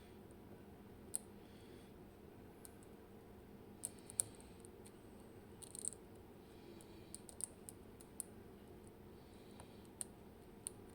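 Faint, irregular clicks and light scraping of lock picks working the pin stacks of a Robur Mini 6K safe deposit lock, about ten sharp ticks spread unevenly with short scratchy passages between them.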